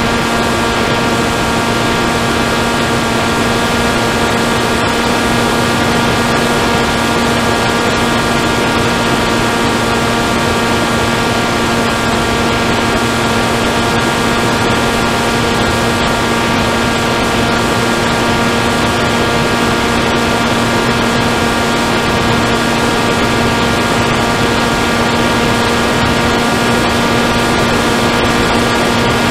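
Steady whine of an FPV aircraft's electric motors and propellers held at an even throttle, several unchanging tones over a rush of wind noise.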